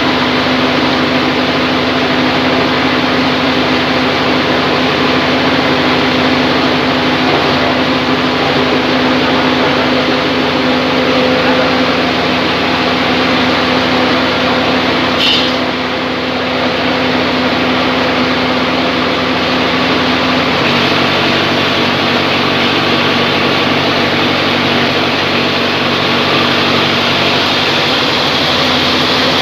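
Band sawmill running loud and steady: a constant motor hum under a dense rushing noise of the saw. About two-thirds of the way in, a deeper hum joins.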